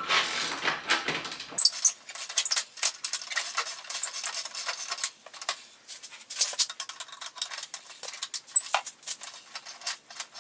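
Socket ratchet clicking in quick, irregular runs as a bolt on the tractor's rock shaft arms is worked loose, mixed with small metal clinks of tools against the frame.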